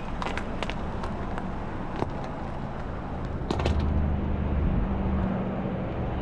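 Car engine running at low speed, a low steady hum that grows louder about three and a half seconds in, with a few sharp clicks scattered through it.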